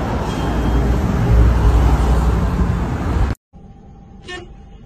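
Loud city street traffic noise with a low rumble. It cuts off abruptly about three seconds in, giving way to a much quieter passage with a faint steady tone and a brief sound near the end.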